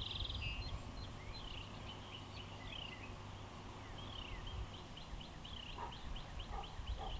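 Small birds chirping: quick, high, downward-sliding chirps repeated many times over a faint low rumble, with a few soft taps near the end.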